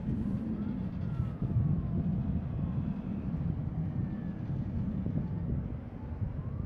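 Low, uneven rumble of wind buffeting the microphone, rising and falling irregularly.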